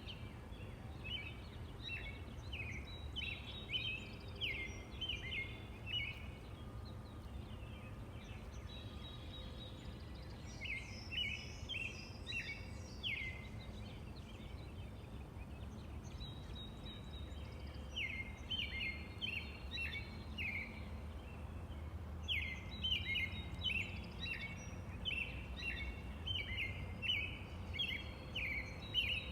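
A robin singing in phrases of quick, short, high notes, with pauses of a few seconds between bouts, over a steady low background rumble.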